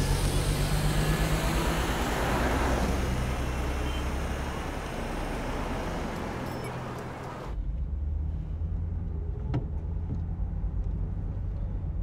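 A vintage car engine running with road noise as the car drives along. About seven seconds in, the sound cuts abruptly to a quieter, muffled low engine drone heard from inside the cabin, with a single click a couple of seconds later.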